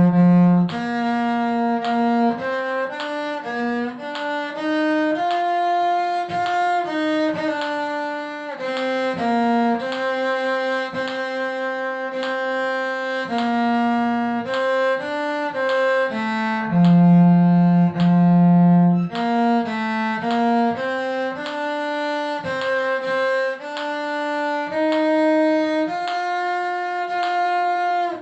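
Bowed string instrument playing a melody in held notes, one note at a time, with a longer low note near the middle.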